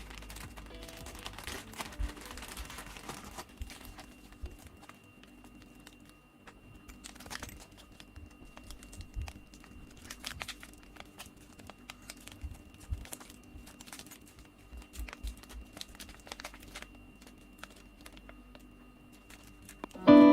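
Handling noise from the drill set's packaging: crinkling with scattered light clicks and rustles.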